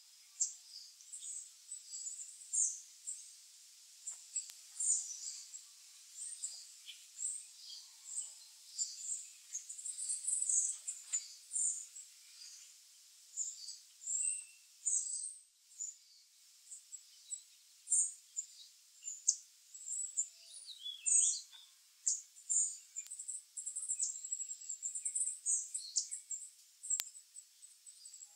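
Small songbirds calling with many short, high chirps and twitters, often several a second, over a faint steady hiss.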